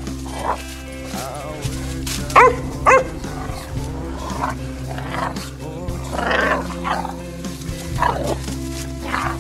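Puppies play-fighting, giving a few short barks, the loudest two close together a little over two seconds in. Background music plays throughout.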